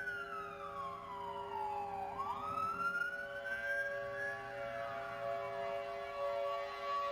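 Tornado warning siren (a 500AT) wailing: its pitch sweeps down for about two seconds, climbs back up for about two seconds, then starts falling again, over several steady held tones.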